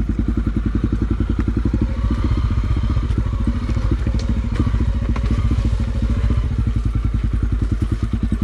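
Honda XR250 Tornado's single-cylinder four-stroke engine running at low, even revs with a rapid steady pulse, just after being bump-started. A few light clicks sound over it.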